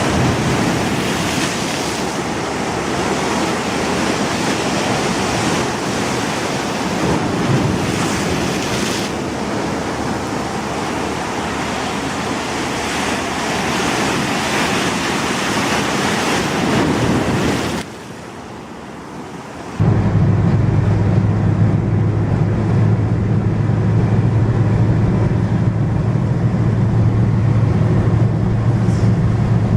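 Surf washing on a beach with wind on the microphone, a steady rushing noise. After a sudden cut and a short quieter gap about 18 seconds in, a loud steady low drone of a car's engine and road noise takes over.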